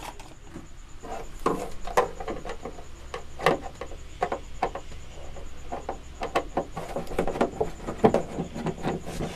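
Plastic cabinet of a CRT television being handled and opened: irregular knocks, clicks and scraping of plastic as the set is turned and its back cover worked loose.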